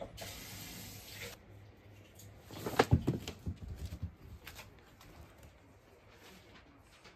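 Rustling, then a quick run of knocks and thumps among stored household clutter about three seconds in, followed by a few faint taps.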